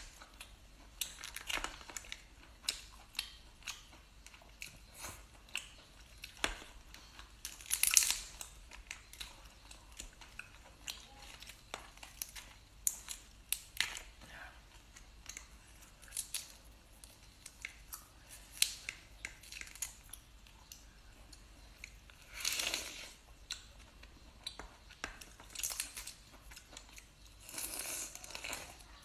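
Cooked Boston lobster pulled apart by hand: the shell crackling and clicking and the meat tearing, in a run of short sharp crackles with a few louder bursts. Chewing near the end.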